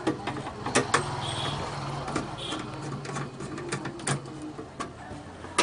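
Screwdriver working the screws out of a Miyako rice cooker's metal base: a few sharp clicks and taps of the tool on the screws and housing, over a low steady hum.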